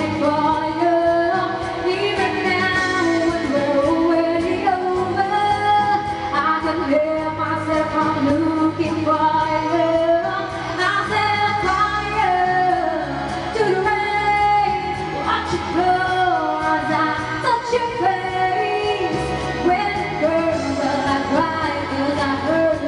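A solo singer singing a pop ballad over instrumental accompaniment.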